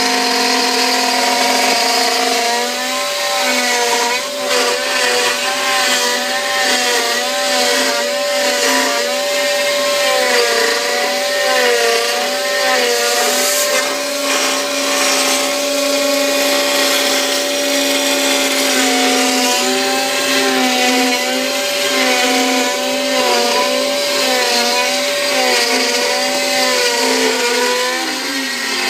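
Bravo Prodegy 3030 CNC router cutting a curved profile in wood: its spindle runs steadily while the stepper motors whine up and down in pitch about once a second as the cutter follows the outline. Partway through, a vacuum hose sucks up the chips.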